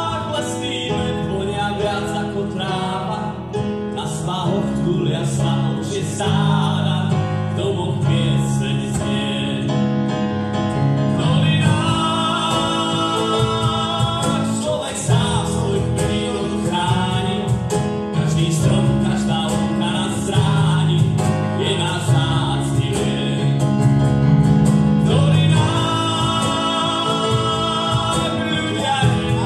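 Live band music: a man sings a song over an electric keyboard, with a drum kit keeping time underneath.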